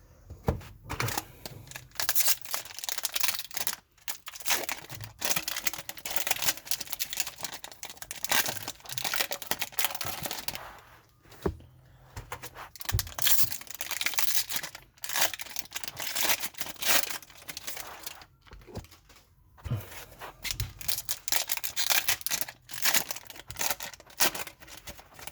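Trading-card pack wrappers being torn open and crinkled by hand, in irregular bursts of tearing and rustling with short pauses.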